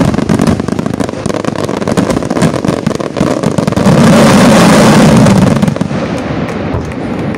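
Aerial firework shells bursting in a rapid, dense barrage in a display's finale. About four seconds in, the bursts merge into one continuous loud roar lasting nearly two seconds, then drop away to scattered crackling.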